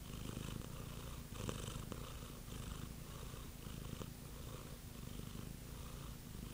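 Domestic cat purring close to the microphone: a steady low rumble that rises and falls with its breathing, about twice a second.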